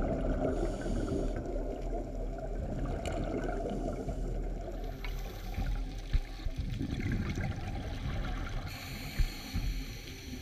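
Underwater audio through a camera housing: divers' exhaled regulator bubbles rushing and gurgling over a steady motor hum from diver propulsion vehicles (scooters). A couple of sharp knocks come in the second half.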